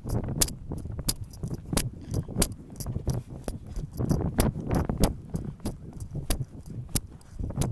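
Ridden horse on a soft dirt trail: its bridle and tack jingle with frequent, irregular sharp metallic clicks over the low, dull thud and scuff of its hooves.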